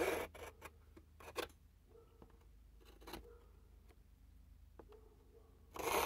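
A metal scribe scratching along the edge of a knife handle into a sheet of G10 fiberglass, marking its outline. It comes as several short scratchy strokes with pauses between them, the loudest at the start and near the end.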